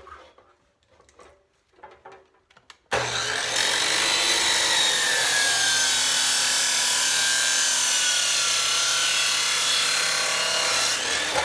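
A power saw cutting through a length of roll-cage tube, starting suddenly about three seconds in and running steadily for about eight seconds, its pitch drifting slowly lower, before stopping near the end. Light handling clicks come before the cut.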